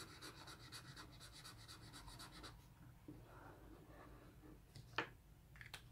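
Crayola metallic fine-tip felt marker scratching on plain paper, faint: quick back-and-forth strokes, about five a second, filling in a small square, then a softer stroke drawing a line, with a sharp click about five seconds in.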